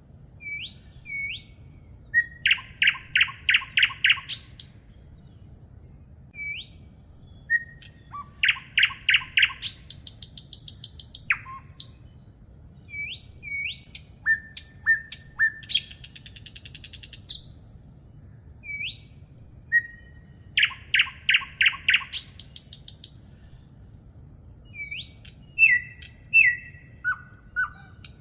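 A songbird singing, repeating a short phrase three times: a few upslurred notes, then a fast run of loud, evenly spaced notes. Other high chirps and buzzy trills fall between the phrases.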